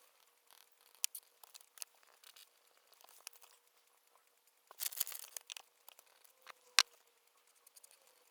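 Desk sounds of someone studying: scattered light taps and clicks, a brief rustle of paper about five seconds in, and a single sharp click a little later.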